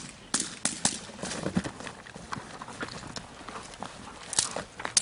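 Sharp cracks of a protection decoy's stick threatening a Belgian Malinois: a quick run of three about half a second in, softer knocks through the middle, and two more loud cracks near the end.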